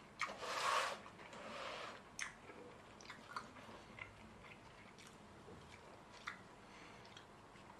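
Faint sounds of someone eating fried chicken: chewing and small wet clicks as the pieces are pulled apart by hand, with a short hissy rustle about a second long near the start.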